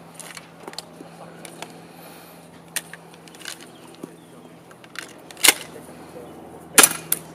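Airsoft pump-action shotgun being fired and cycled: a string of sharp clacks and pops, the loudest two about five and a half and seven seconds in.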